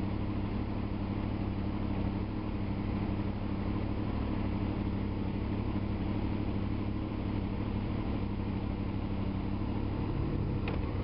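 Honda VFR's V4 engine idling steadily while the motorcycle stands in traffic. A single click comes near the end.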